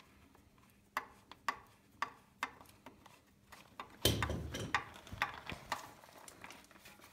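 Ratchet wrench clicking, one click about every half second, as the 17 mm filler plug on an ATV's front differential is loosened; the clicks pause briefly around a louder bump about four seconds in.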